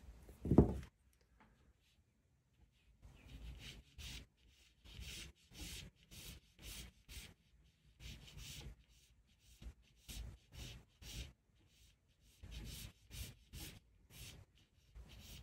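Graphite pencil sketching on paper: short scratchy strokes, about two a second, in runs with brief pauses. A short, louder low sound about half a second in.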